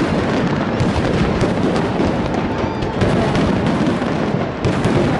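A fireworks display going off in a dense, continuous barrage: overlapping booms and crackling pops with no pause between them.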